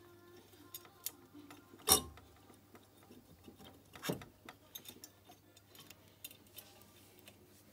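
Small metal clicks and taps as a 125 cc cylinder for a Honda-clone moped engine is eased along its studs toward the crankcase, with two sharper knocks about two and four seconds in, the first the louder.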